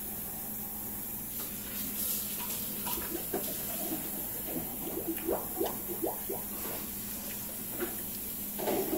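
Noodle eating sounds: a string of short wet slurps and mouth sounds as noodles are eaten with chopsticks from a bowl, mostly in the middle of the stretch and again near the end, over a steady faint hiss and low hum.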